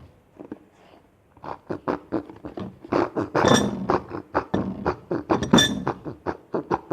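Rapid wet, sticky squelching clicks of Patafix poster putty being worked with liquid soap by hand, with two brief squeaks about halfway and near the end.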